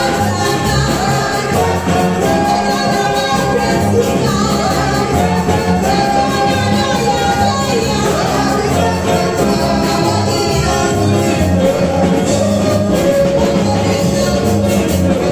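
A woman singing a gospel song into a microphone, amplified, over instrumental accompaniment with a steady beat.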